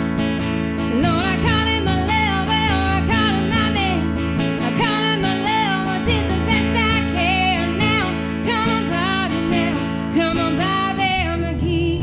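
A song: a singer's wavering melody over guitar accompaniment, with no break.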